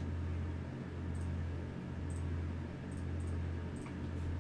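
A few faint computer-mouse clicks over a steady low hum that swells and dips about once a second.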